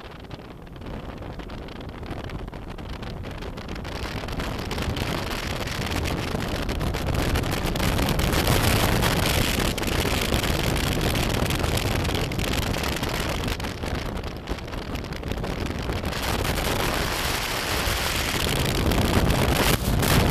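Wind rushing over the microphone of a moving motorcycle, with a low rumble underneath. It grows louder over the first eight seconds or so and then stays loud.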